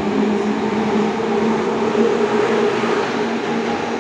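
Passenger train hauled by an EP07 electric locomotive running by: a steady rumble with a low hum.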